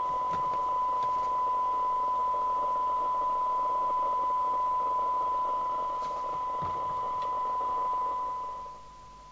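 A CB radio receiver reproducing a steady test tone from a signal generator, with a hiss of noise around it, as the weak test signal is set near the squelch threshold. Near the end the sound drops away to a faint tone.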